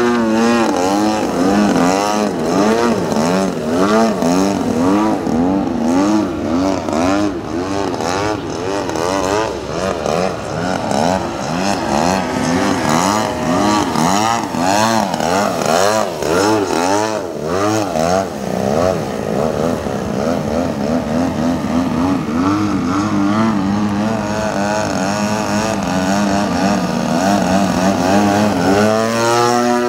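Engine of a large radio-controlled aerobatic airplane, revving and easing off through continuous manoeuvres, its pitch swooping up and down again and again as it passes and turns.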